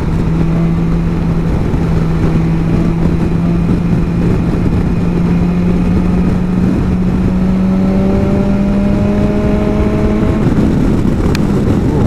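BMW S1000 XR's inline-four engine running under way, its note climbing slowly and evenly in pitch over about ten seconds as the bike pulls along, heard over a heavy low rush of wind and road noise at a helmet-mounted microphone.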